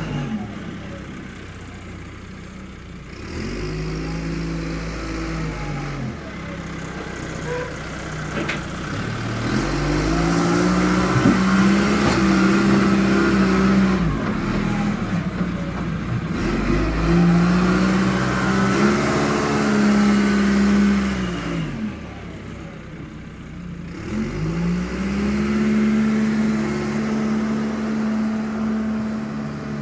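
John Deere 310 backhoe loader's diesel engine working, its revs climbing and dropping back about four times as it is loaded, settling at a steady high speed near the end.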